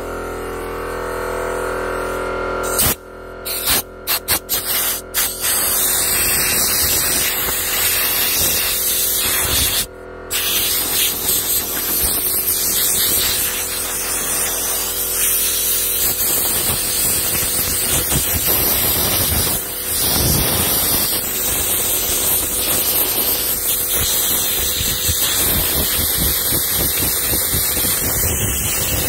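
Loud, steady rushing hiss of a tool working on the red cedar carving. It starts in a few short bursts about three seconds in, cuts out briefly near ten seconds, then runs on. Background music plays at first.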